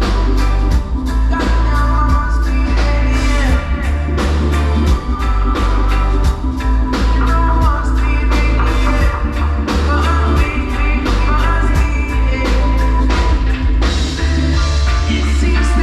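Reggae band playing live, with a heavy bass line, drum kit, guitar and a singing voice.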